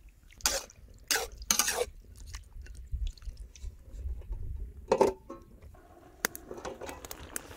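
A metal spatula scraping and stirring fish pieces in a steel wok, with three brief scrapes early on. About five seconds in, a metal lid clanks down onto the wok with a short ring.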